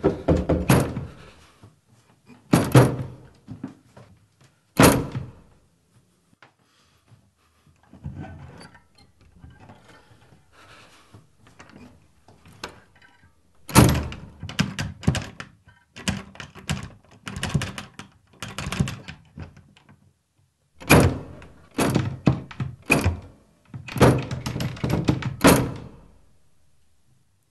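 A door being banged on hard, heard from inside the room: three single heavy thuds about two seconds apart, then after a lull, long bursts of rapid pounding with the door rattling, which stop abruptly near the end.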